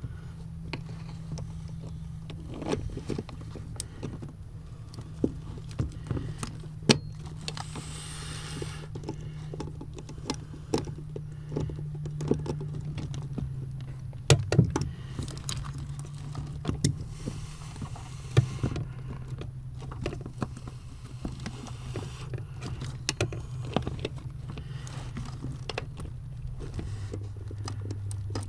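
Scattered metal clicks, clinks and knocks of hand-fitting an accelerator pedal assembly and its fasteners under a car's dashboard, over a steady low hum.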